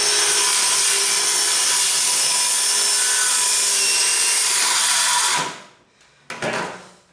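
Ryobi circular saw with a Diablo blade plunge-cutting through 3/4-inch plywood. The motor runs at a steady speed through the cut, then is released and spins down about five and a half seconds in, followed by a few knocks near the end.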